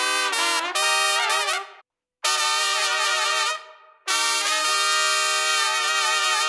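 Trumpet played solo: a phrase of moving notes, a brief break about two seconds in, another short phrase, then longer held notes from about four seconds in. This is most likely the brass trumpet, played as a comparison with a plastic one.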